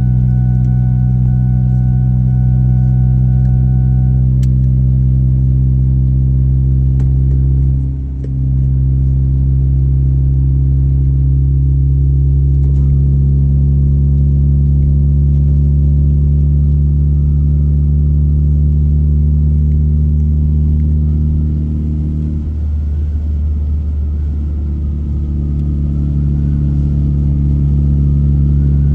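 Steady low drone of a car's engine and tyres heard from inside the cabin while driving, shifting in pitch a few times.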